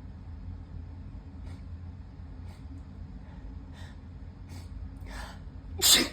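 A person sniffling in short, quiet sniffs through a stuffy nose during a sneezing fit. Near the end comes a longer drawn-in breath and then a loud, sudden sneeze.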